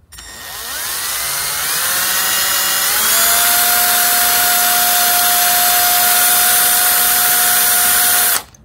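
Hand drill with a small 1/16-inch bit drilling out a rivet: the motor whine rises in pitch over the first three seconds as it speeds up, holds steady, then cuts off suddenly near the end.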